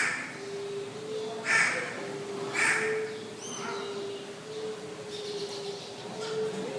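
A bird giving harsh, cawing calls, three loud ones about a second apart in the first three seconds, then a faint high chirp.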